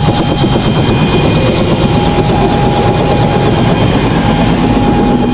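Helicopter running close by with its rotor turning: a steady turbine whine over a loud, rapid, rhythmic rotor chop.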